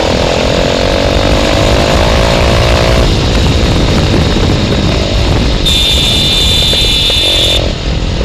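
A 220 cc motorcycle with a newly fitted aftermarket exhaust accelerates, its engine note rising steadily for about three seconds. Then the throttle comes off and the exhaust pops and crackles on the overrun: the 'fire shots'. Wind rumbles on the microphone throughout, and a high steady tone sounds for about two seconds near the end.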